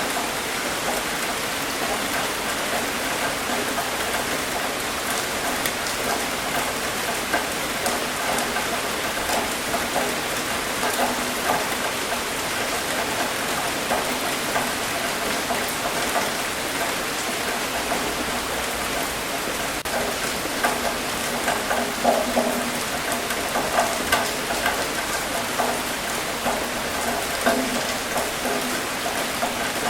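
Steady rain falling, with many separate drops striking a surface in quick, irregular ticks over an even hiss.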